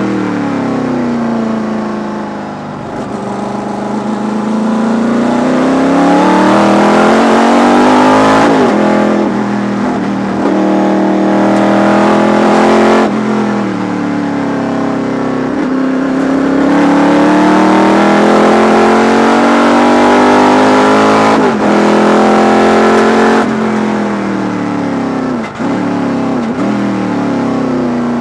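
V8 sports sedan race car engine heard from inside the cockpit under racing load. It revs up through the gears, the pitch climbing and then dropping sharply at each upshift, and the revs fall away as the car slows for corners; this happens twice.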